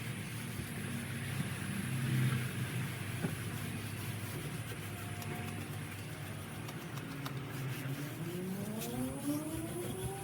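Pressure washer's small engine running steadily, with a pitch rising over the last few seconds.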